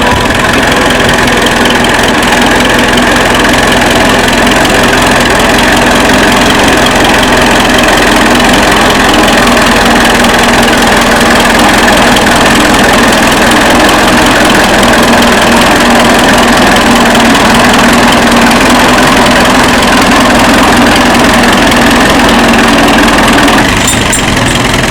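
1935 Fordson tractor's four-cylinder engine running loud and steady, easing off slightly near the end.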